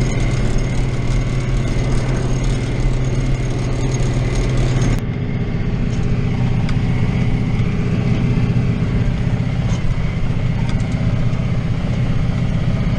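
John Deere 2940 tractor's diesel engine running steadily while pulling a hay rake. About five seconds in, the sound changes abruptly: the high end drops away and the engine's tone shifts slightly.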